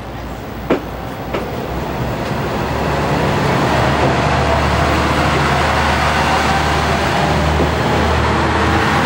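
Noto Railway NT100 diesel railcar running along the platform, its engine and wheels growing louder over the first few seconds and then settling into a steady low hum. Two sharp clicks sound in the first second and a half.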